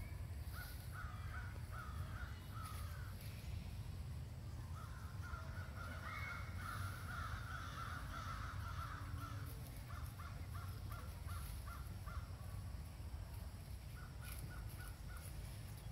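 Crows cawing in short series of a few harsh calls at a time, over a steady low rumble.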